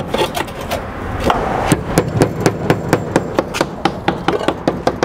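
Hammer nailing a concrete S-shaped roof tile down: a few scattered taps, then a steady run of quick blows, about four a second, from just under two seconds in.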